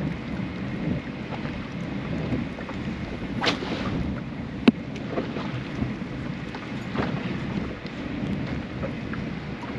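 Wind buffeting the microphone, a steady low rumble, with a few light knocks and one sharp click a little before the middle.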